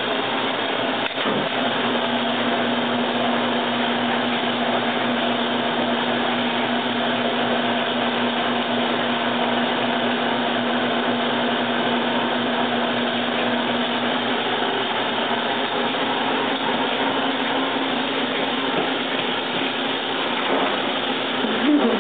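Electric honey extractor running, a steady machine whir with a hum that shifts slightly about two-thirds of the way through.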